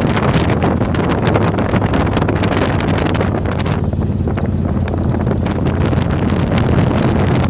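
Heavy wind buffeting on the microphone while riding a Yamaha Virago 1100 motorcycle, over the steady low hum of its V-twin engine at cruising speed.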